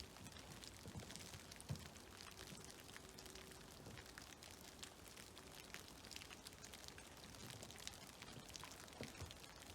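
Snowmelt dripping from trees: faint, scattered drops falling irregularly, with a few louder plops, over a soft, even background wash.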